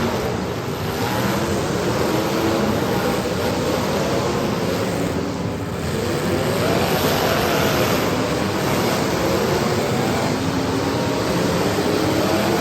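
Several demolition derby car engines revving at once, their pitches rising and falling over a steady din.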